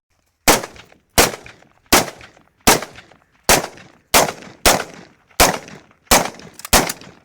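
Ten shots from an M23 handgun, fired one-handed in steady succession, one about every three-quarters of a second, each followed by a short echoing tail.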